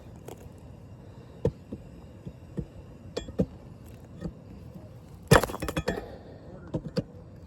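Scattered knocks and clicks, with a short cluster of cracking, clattering sounds about five seconds in.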